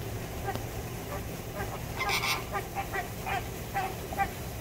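A flock of flamingos honking: a run of short, goose-like calls, several a second, with a louder, noisier burst about two seconds in.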